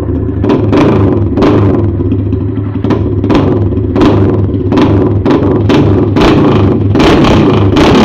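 Motorcycle engine running loud through an empty muffler whose wool packing has burned out, with the throttle revved in many short repeated bursts over a steady low note.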